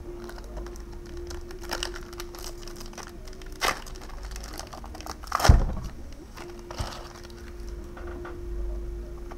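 Crinkling and clicking as trading cards and foil booster-pack wrappers are handled, with one louder knock about five and a half seconds in.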